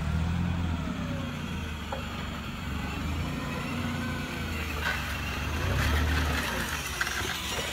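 Radio-controlled model forklift (a converted Bruder Linde) driving with a load, giving a low steady hum. A faint motor whine rises and falls at the start and again near the end.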